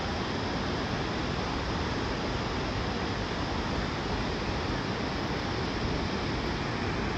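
Kempty Falls, a waterfall, rushing with a steady, even roar of falling water.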